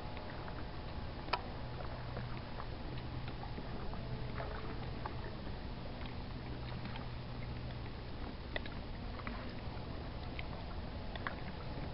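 Water lapping against a kayak hull, over a steady low hum and scattered faint ticks.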